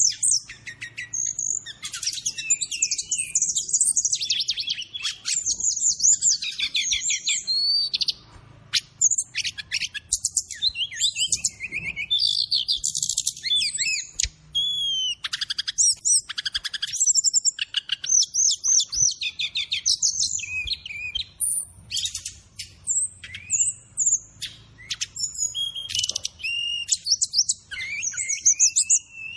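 Brown-chested jungle flycatcher (SRDC, sikatan rimba dada coklat) singing a fast, varied song of high chirps, trills and whistled gliding notes, nearly continuous with brief pauses.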